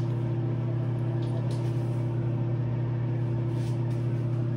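Steady low electrical hum with a fainter higher tone above it, as from a fan or other appliance running in a small room, with a few faint rustles of handling.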